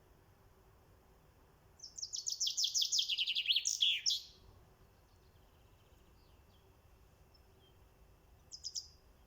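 House sparrow chirping: a fast run of high chirps lasting about two and a half seconds that drops in pitch at its end, then a brief cluster of a few chirps near the end.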